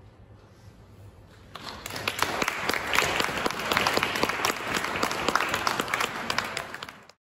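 The last acoustic guitar chord fades out, then an audience breaks into applause about a second and a half in, dense clapping that cuts off abruptly near the end.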